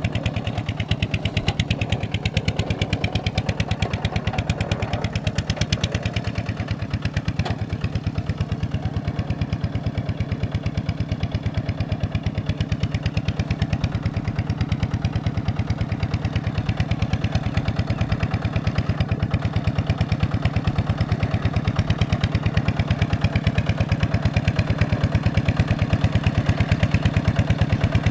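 Small single-cylinder diesel engine of the Kubota RT/ZT kind running steadily at an even idle, a fast regular chugging beat.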